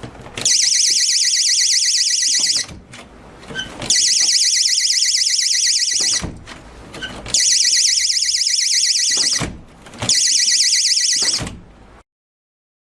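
Wireless door/window burglar alarm sounding a loud, high-pitched warbling siren in four bursts of about one and a half to two and a half seconds each, with small handling clicks in the gaps between them.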